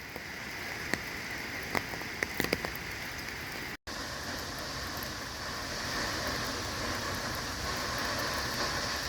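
Heavy rain falling in a steady hiss, with sharp raindrop taps in the first few seconds. A brief dropout just under four seconds in, then the hiss carries on slightly louder.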